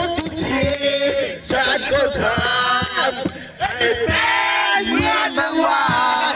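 Background music: a Thai-language song with a man singing, with some long held notes.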